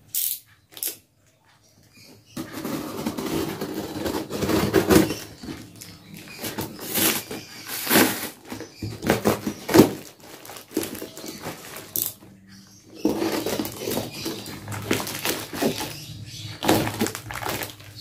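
Cardboard parcel being cut and torn open: packing tape and cardboard slit with a cutter, ripped and rustled in irregular scratchy bursts, starting about two seconds in.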